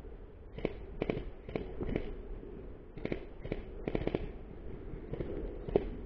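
About a dozen sharp pops at uneven intervals, some in quick pairs: airsoft guns firing single shots.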